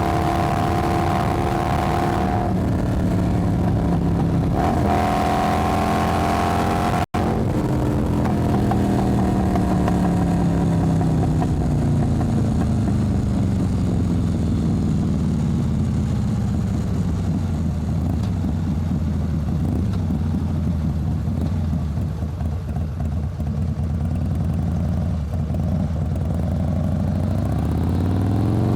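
Motorcycle engine under way, its pitch stepping up and down through gear changes in the first few seconds. A brief cut to silence comes about seven seconds in, then a long, slow fall in engine pitch as the bike slows, picking up again near the end.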